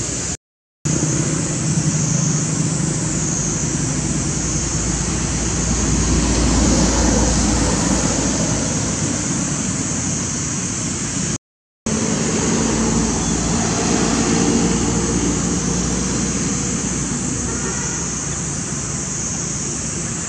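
Steady outdoor background noise with a constant high hiss and some low rumble, broken by two short gaps of dead silence, one about half a second in and one about eleven and a half seconds in.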